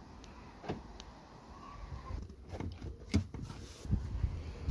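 Chrysler 300C central locking clicking as the key fob is pressed, followed by a few louder clunks of the car's door and catches being worked.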